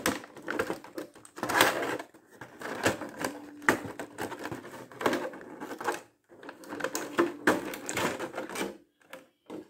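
Clear plastic blister tray handled and flexed by hand, crackling and clicking in irregular bursts.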